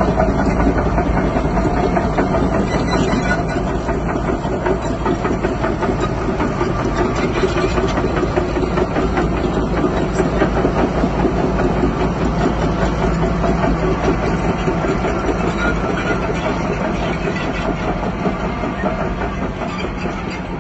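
Bulldozer's diesel engine running steadily, with a continuous fine rattle over it.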